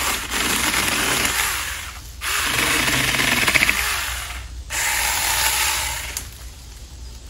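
Saker 4-inch 20-volt cordless electric mini chainsaw cutting through a thin stem in three bursts with short pauses, the motor's pitch wavering as the chain bites.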